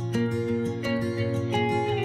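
Background music: a melody of pitched notes over a steady beat.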